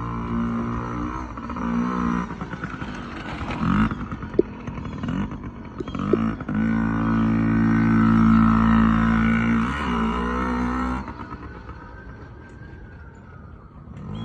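Yamaha PW50 mini dirt bike's small two-stroke engine revving up and down as it is ridden on dirt. It is loudest as the bike passes close, from about six and a half to eleven seconds in, then drops away sharply as it rides off.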